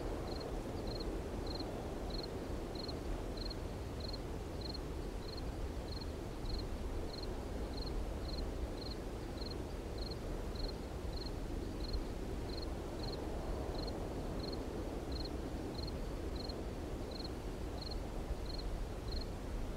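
Outdoor field ambience: a steady low rushing noise, with a short high chirp repeating evenly about one and a half times a second.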